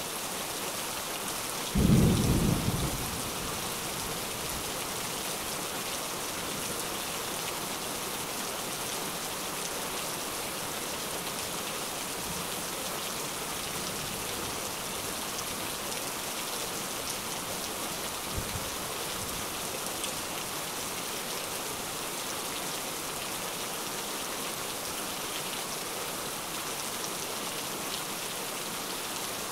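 Steady rain with one short, loud, low thunderclap about two seconds in that dies away within a second, and fainter low rumbles of thunder later on.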